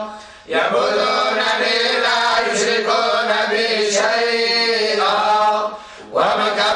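Men's voices reciting the Quran together in unison in the Moroccan collective style (hizb rateb): a slow, drawn-out melodic chant. It breaks off briefly for breath about half a second in and again near the end.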